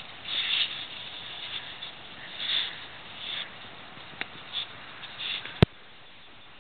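Dogs nosing and digging in snow to get at food: irregular crunching, hissing bursts and sniffs of packed snow. A sharp click comes a little over five seconds in, after which only a steady hiss remains.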